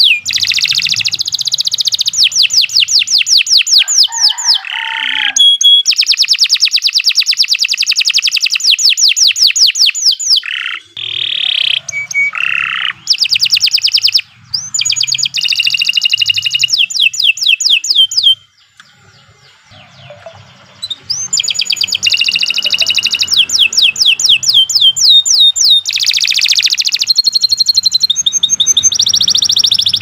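Domestic canary singing a long song of fast trills, rapid runs of repeated chirps with a few short held whistled notes. The song breaks off for about two seconds past the middle, then resumes.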